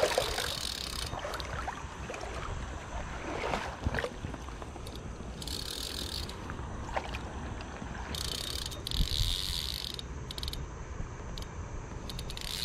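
Fly reel's click-and-pawl drag ratcheting in several short spells while a hooked trout is played, over a steady low rumble.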